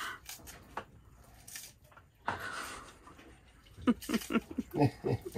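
A man chuckling in short, breathy bursts during the second half, after a couple of audible exhales.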